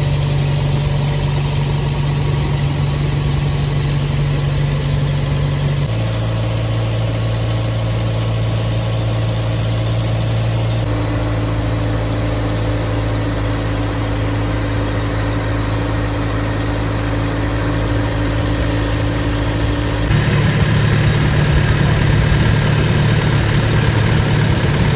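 An engine running steadily at constant speed, with a steady low hum. Its pitch changes abruptly about 6, 11 and 20 seconds in.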